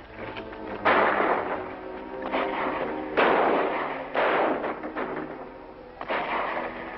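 Orchestral film score with about five sudden loud gunshots at irregular intervals, each a sharp crack trailing off over roughly half a second.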